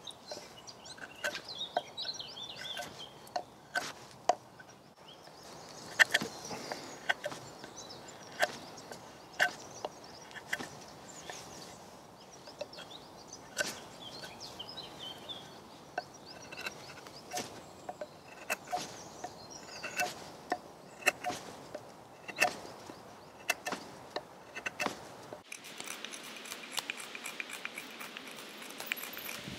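Thin stainless knife blade carving a hard, dry, knotty piece of blackthorn: each stroke gives a sharp wooden click or snap, irregularly about one or two a second. Birds chirp in the background, and a fast high trill comes in near the end.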